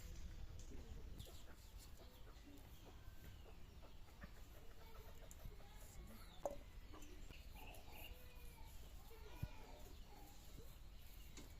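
Chickens clucking faintly, with short calls in the second half, and a couple of sharp knocks.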